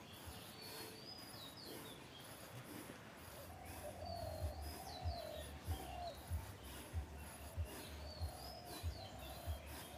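Doves cooing in repeated phrases, with another bird chirping higher. From about four seconds in, a regular run of soft low thumps comes about every two-thirds of a second.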